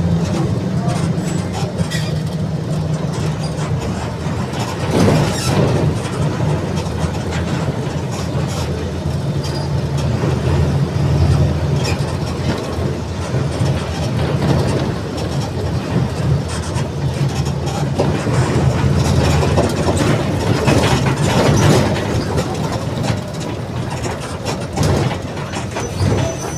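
Mercedes-Benz OF-1722M bus diesel engine running as the bus drives, its low drone shifting in pitch a few times with changes in engine speed. Knocks and rattles from the bus body come through over bumps, a loud one about five seconds in and another near twenty-one seconds.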